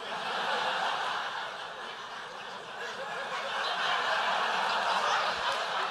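A theatre audience laughing together, a steady wash of crowd laughter that dips slightly and swells again about four seconds in.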